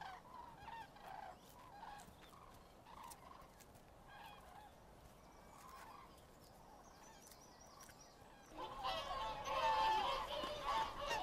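Faint, scattered bird calls, then about two-thirds of the way in a flock of whooper swans starts honking loudly, many calls overlapping.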